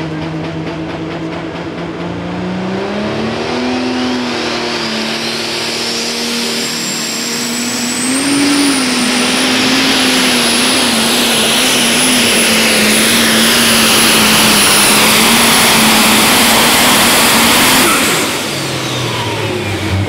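Super stock diesel pulling tractor at full throttle down the track. The engine note climbs a couple of seconds in and holds, with a high turbocharger whistle rising over it to a steady pitch. Both cut off abruptly about 18 seconds in as the run ends, dropping to a lower idle.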